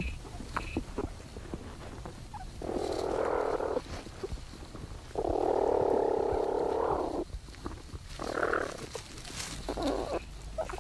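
Platypuses in their nesting burrow while the young suckle from their mother: four noisy, hoarse bursts of sound, the longest about two seconds and in the middle, the last two short.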